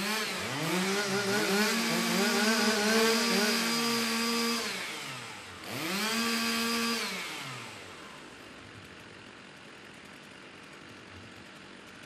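Two-stroke Stihl chainsaws being warmed up. They rev up about a second in, hold at high speed for a few seconds and drop back, rev again briefly about six seconds in, then settle to a low idle.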